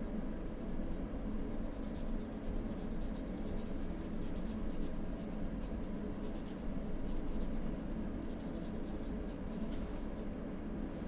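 Paintbrush bristles scratching and rubbing across a canvas in quick repeated strokes as paint is blended, over a steady low background hum.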